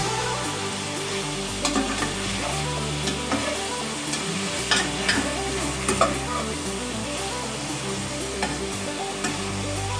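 Chicken pieces sizzling in hot oil in a metal pot while a metal spatula stirs them, scraping and clacking against the pot a few times, sharpest around two, five and six seconds in.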